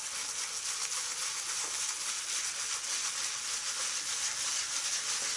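Synthetic shaving brush working shaving cream into a lather on a stubbled face, freshly wetted with a few drops of water: a steady, fine, wet hiss of bristles rubbing through the lather.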